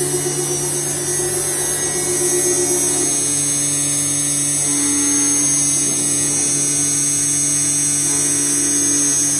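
Reconditioned CNC woodworking machine running: a steady electric hum with a high whine, one of its tones stepping slightly lower about three seconds in.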